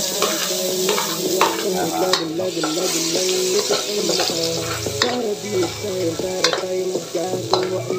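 Minced garlic sizzling as it sautés in hot rendered pork fat in a wok. A spatula stirs it, scraping and clicking against the pan now and then.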